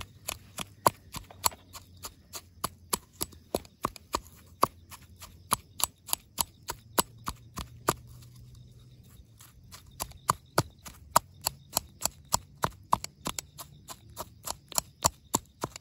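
Steady chopping: a blade striking in sharp, even knocks about three times a second.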